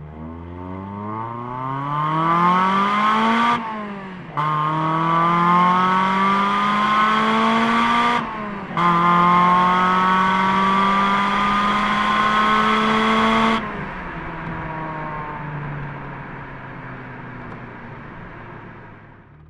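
Mazda Miata NB four-cylinder through an M2 Motorsport exhaust with its silencer fitted, pulling hard from a stop through first, second and third gear. The revs rise in three runs with a short break at each upshift, about four and eight and a half seconds in. About thirteen and a half seconds in it lifts off to a steadier, lower drone that fades away.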